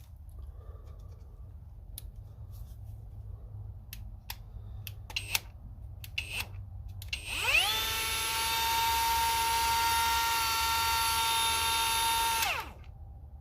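Kobalt cordless brushless tool with a 1/4-inch collet spinning up with a rising whine, running at a steady high pitch for about five seconds, then winding down quickly. A few handling clicks come before it.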